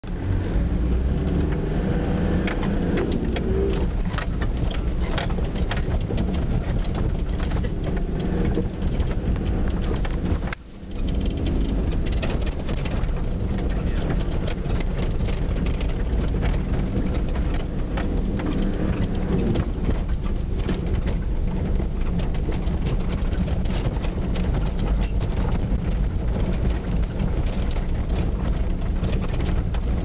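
Four-wheel-drive vehicle driving on a rough dirt track, heard from inside the cab: a steady engine and tyre rumble with frequent knocks and rattles from the bumps. The sound briefly drops away about ten and a half seconds in.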